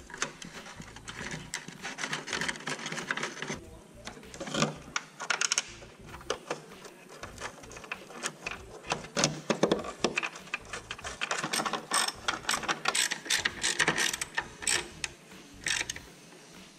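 Ratchet wrench clicking in short rapid runs with brief pauses, as a nut and washer are tightened on a loose exhaust heat shield whose bolt hole had worn through and let it rattle.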